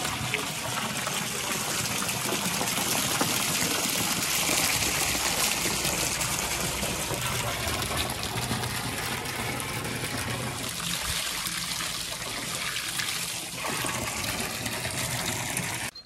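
Steady stream of water pouring from a pipe and splashing into a water-filled concrete tank, falling onto a mesh bag held in the flow.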